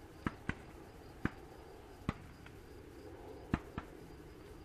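Six short, sharp clicks at irregular intervals, two of them a quarter-second apart at the start and two more near the end. Behind them is faint, high insect chirping that pulses evenly.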